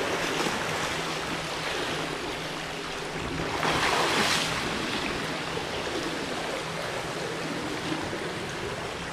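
Pool water splashing from a swimmer's backstroke arm strokes, then a louder splash about four seconds in as he throws a backward somersault turn at the wall, going from backstroke into breaststroke. After it the water is quieter as he glides underwater.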